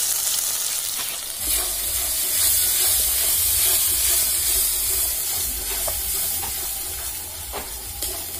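Onion-tomato masala sizzling in hot oil in an aluminium wok while it is fried down with turmeric, a metal spatula stirring and now and then scraping the pan. A low rumble comes in about a second and a half in.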